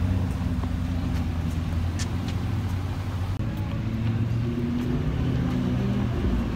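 Car engine running at low revs, its pitch drifting gently up and down, with a short click about two seconds in.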